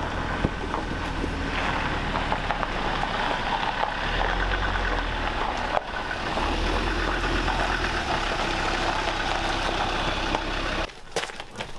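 A 4x4 engine running steadily at low speed as it tows a boat trailer along a gravel driveway. The sound stops abruptly near the end.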